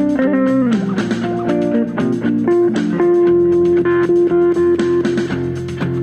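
Guitar playing a melodic line over a bass line, with a bent note falling in pitch about half a second in and a long held note through the second half.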